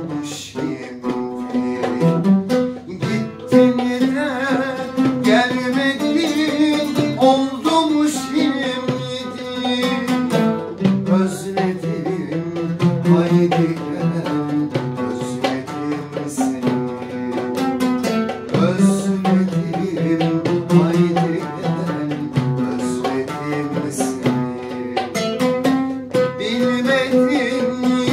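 A man singing a Turkish art song, accompanied by an oud.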